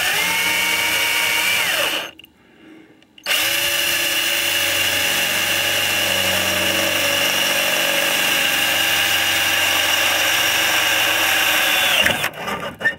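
Ryobi cordless drill running at a steady pitch, boring the quarter-inch hole through the steel center reinforcement brace under the rear package shelf. It runs for a couple of seconds, stops briefly, then runs steadily again for about nine seconds before winding down near the end.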